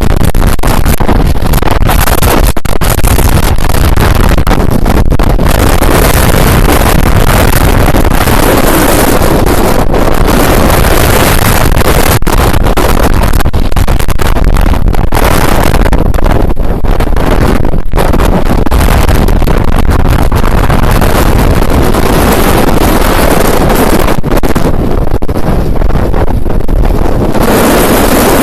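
Typhoon-force wind blasting across the microphone: a loud, continuous rushing noise across all pitches, with only brief dips and no let-up.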